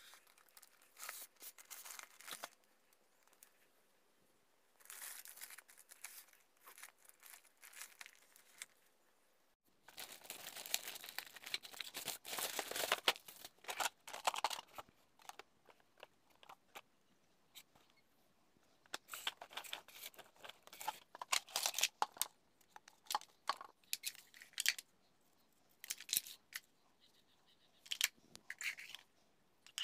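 Clear plastic packaging bag crinkling and tearing as the toy dump truck is unwrapped, coming in irregular bursts of rustling with quiet gaps between.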